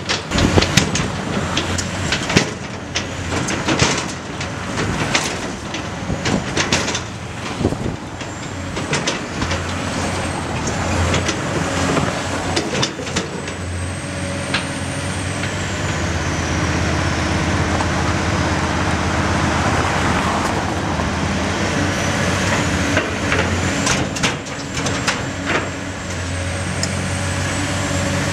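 Caterpillar 345C hydraulic excavator working, its diesel engine running steadily under repeated sharp clanks and knocks over roughly the first half. Later the engine note steadies, with a high whine that rises and falls twice.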